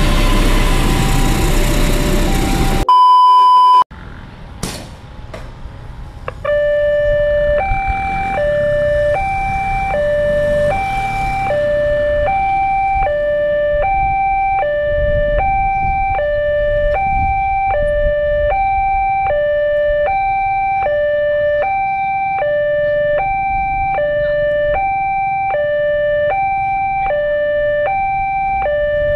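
Railway level-crossing warning alarm: an electronic two-tone signal alternating between a higher and a lower pitch about once a second, sounding while the crossing barrier is lowered. At the start a passing train's rumble is heard, cut off by a loud steady beep lasting about a second.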